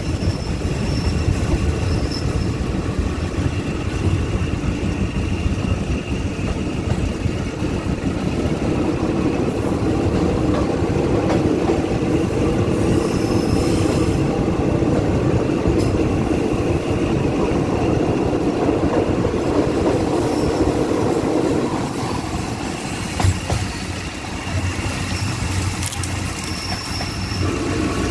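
Passenger train running along the track, heard from an open carriage window: a steady rumble of wheels on rail with rushing noise.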